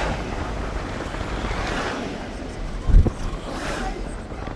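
Road and wind noise from a moving car, with other vehicles passing in swelling whooshes and a single low thump about three seconds in.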